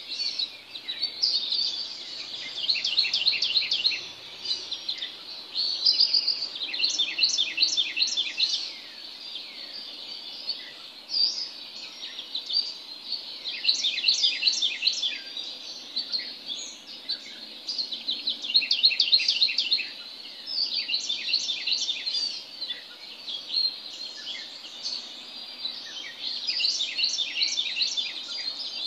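Songbirds singing in the early-morning dark: bouts of quick, repeated high notes, each lasting one to three seconds, come every few seconds over faint steady background noise.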